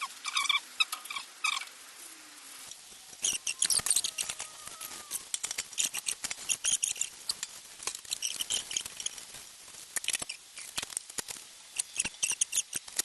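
Paper being rubbed back and forth over a waxed cast iron machine table, giving repeated squeaks and scuffing with scattered light clicks.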